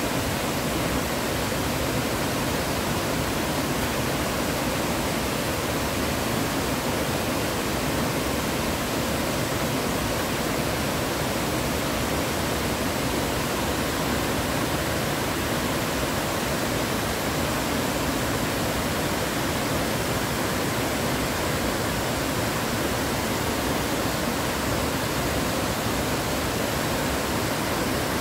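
Muddy floodwater rushing steadily, an even hiss that never changes.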